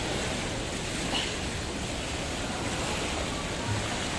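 Jacuzzi water churning and bubbling from the jets, a steady rushing noise.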